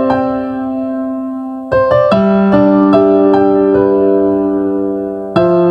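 Slow instrumental keyboard music in an electric-piano sound: soft held chords that fade between new chords, one struck about two seconds in and another near the end.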